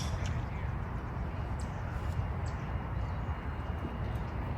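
Steady low rumble of wind on the microphone, with a few faint short chirps.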